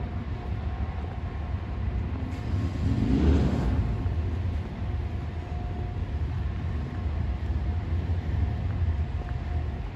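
Steady low rumble of road traffic, with one motor vehicle passing by about three seconds in, its sound swelling and then fading.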